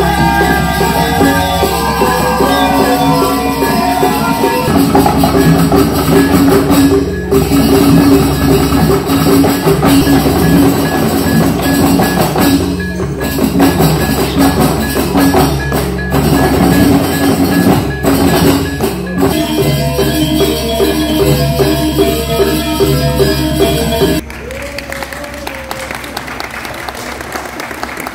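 Balinese gamelan ensemble playing: bronze keyed metallophones in fast ringing figures over drums and gongs. About 24 seconds in it drops to a much quieter, thinner passage.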